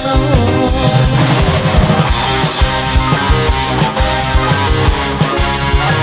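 Live burok dangdut band music, loud and dense, with a steady drum beat under pitched instruments.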